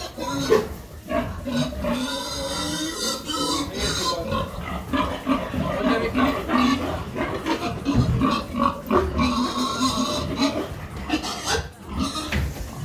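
Domestic pig grunting over and over while loose in its pen, with two stretches of louder, higher squealing, about two seconds in and again around ten seconds.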